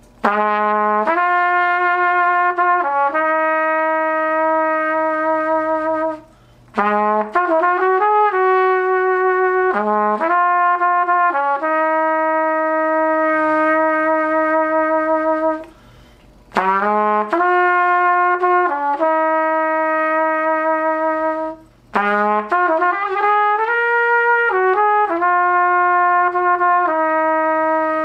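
Vintage Martin B-flat trumpet played with a Bach 7C mouthpiece. It plays four slow phrases of long held notes, with short breaks for breath between them.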